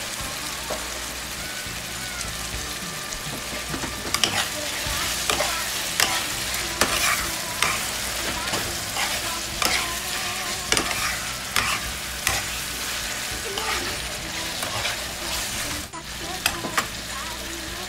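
Tomatoes, onions and meat sizzling in a nonstick frying pan. From about four seconds in, a metal spoon stirs them, clinking and scraping against the pan.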